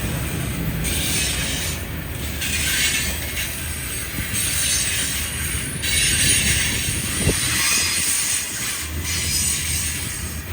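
Railroad freight cars rolling past on steel rails: a steady low rumble of wheels under a hiss that rises and falls, with a sharp click about seven seconds in.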